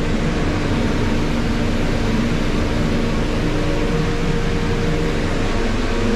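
Steady noise of a cold climate test chamber's refrigeration and air-circulation fans running to hold it at about −19 °C, with a few faint low hum tones under the rushing air.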